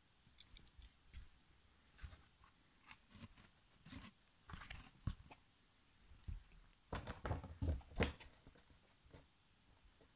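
Handling noise: scattered small clicks, taps and scuffs as a die-cast toy car and its cardboard box are picked up and moved about, busiest and loudest about seven to eight seconds in.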